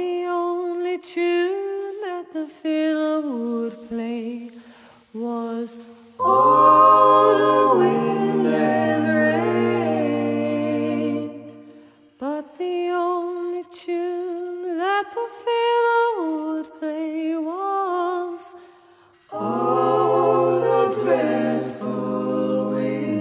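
Unaccompanied folk singing: a sung melody line, thickening about six seconds in and again near the end into fuller layered voices over a low held note.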